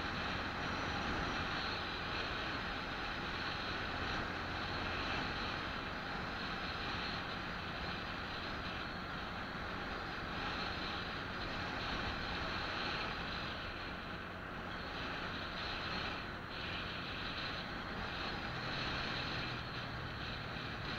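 Steady wind and road noise from a vehicle driving at speed along a paved road, with a faint low hum underneath.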